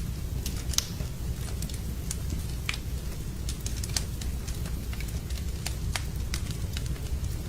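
Wood fire burning in a fireplace, with irregular sharp crackles and pops, a few a second, over a steady low rumble of the flames.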